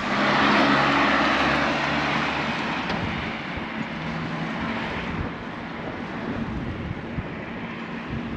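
Wind and road noise from a bicycle riding along a street, loudest at first and then settling to a steady rush, with soft background music underneath.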